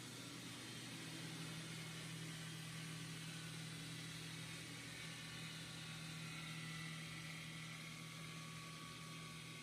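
Large diamond-segment circular block saw cutting a stone boulder under water spray: a steady machine hum with an even hiss of spraying water and cutting.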